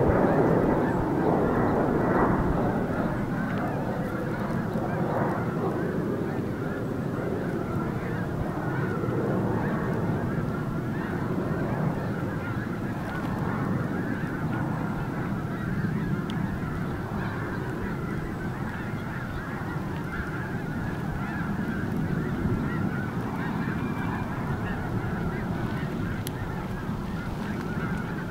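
A large flock of geese honking, many calls overlapping in a continuous chorus.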